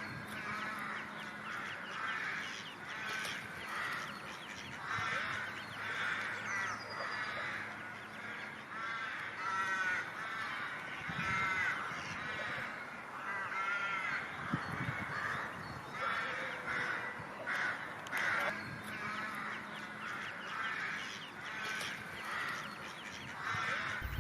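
Birds calling over and over, many short arched calls one after another.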